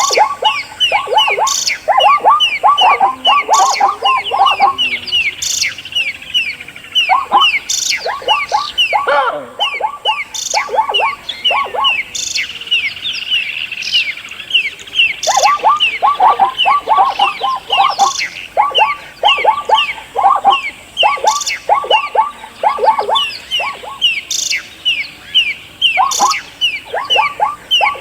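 Several birds chirping rapidly and continuously in short, quick, downward-sliding chirps. Lower chirps come in runs of several at a time over a steady stream of higher ones.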